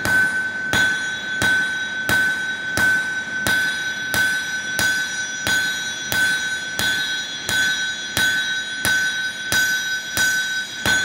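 Hand hammer forging a red-hot wakizashi blade on a steel anvil, striking in a steady rhythm of about three blows every two seconds. Each blow rings out, and the high ring carries on between the strikes.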